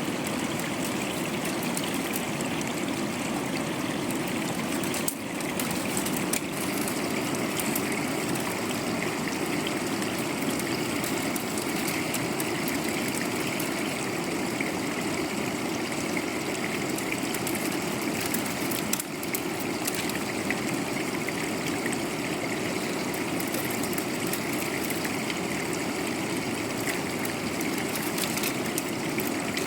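Steady rush of running water, like a stream, continuous and unchanging throughout.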